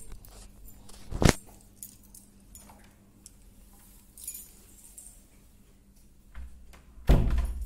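Scattered knocks and light clicks: one sharp knock about a second in, faint clicks and a brief rustle through the middle, and a heavier dull thump near the end.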